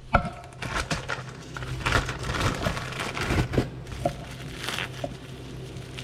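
Plastic packaging crinkling and rustling while being handled, with scattered small clicks and knocks, over a steady low hum.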